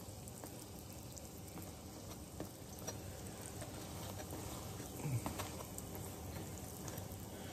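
Fry bread dough sizzling faintly as it fries in hot shortening, with a few light clicks of metal tongs against the pan as the bread is checked and turned.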